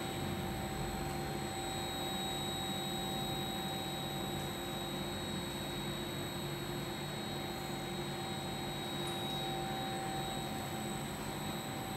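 Tablet and capsule inspection machine running with its dust extraction unit: a steady rushing hum with several steady whining tones held through, and a few faint ticks.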